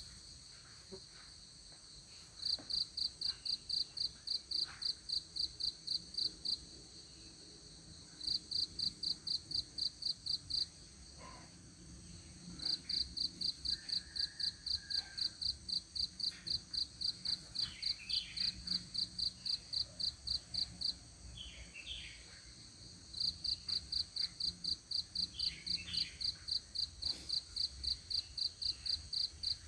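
An insect chirping in long trains of evenly spaced pulses, about four a second, that stop for a second or two and start again. A few faint bird chirps come in during the second half.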